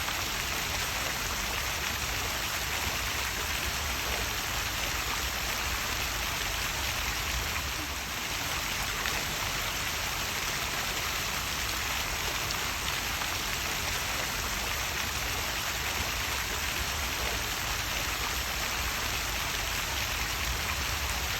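Small waterfall: a steady, even rush of falling and splashing water.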